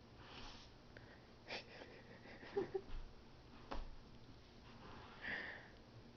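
Faint breathy huffs and sniffs, a handful of short ones, with a couple of soft clicks between them.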